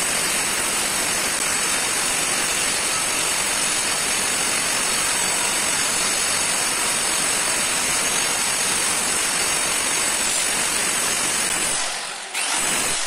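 Handheld electric marble cutter with a cutting disc sawing a curved line into a marble slab: a steady high motor whine under load over the hiss and grind of the disc in the stone. It dips briefly near the end, then resumes.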